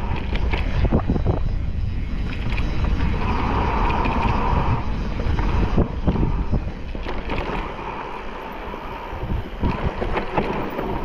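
Mountain bike riding over a rough trail: wind buffeting the microphone with rumble from the tyres and repeated knocks and rattles from the bike over bumps.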